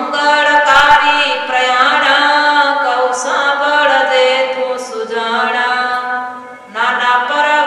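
Devotional chant-like singing with long held notes. It dips briefly about six and a half seconds in, then resumes. A brief knock sounds about a second in.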